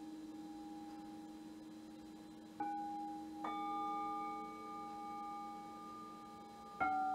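Metal singing bowls struck three times, about two and a half, three and a half and near seven seconds in. Each strike rings on in long, clear, overlapping tones with a slow waver, over a bowl still ringing from an earlier strike.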